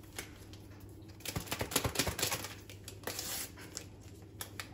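Paper sachets of baking powder being opened and crinkled: two short runs of irregular light rustles and clicks over a low steady hum.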